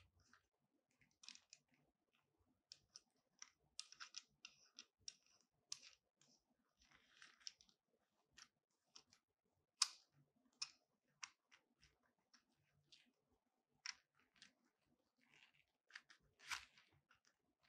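Scattered clicks and light knocks from a Yunteng video tripod's phone clamp and head being handled, with short soft rustles from the gloved hands. The sharpest clicks come about ten seconds in and near the end.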